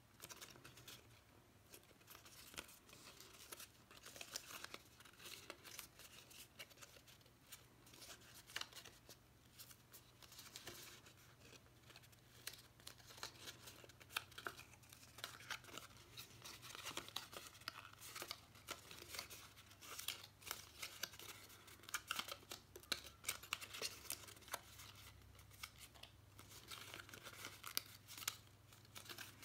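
Faint crackling and rustling of scored cardstock being folded and creased by hand along its score lines, with many small crisp clicks throughout.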